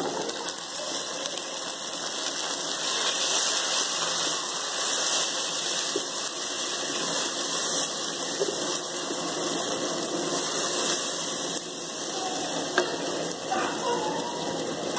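Chopped tomatoes and browned onions sizzling in hot oil in a pot, a steady hiss while they are stirred with a wooden spoon. A single sharp knock near the end.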